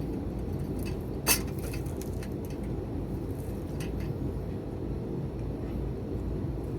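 Cutlery clinks once sharply against a dish about a second in, followed by a few fainter clicks of eating, over a steady low background rumble.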